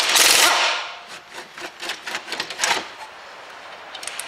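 Pneumatic impact wrench hammering briefly on a brake caliper carrier bolt, undoing it, then a scatter of light metallic clicks and rattles as the loose bolt and socket are handled.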